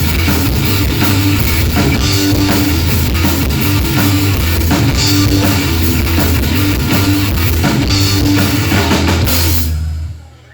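Live rock band playing loudly, with drum kit and electric guitar. The music stops suddenly about nine and a half seconds in as the song ends.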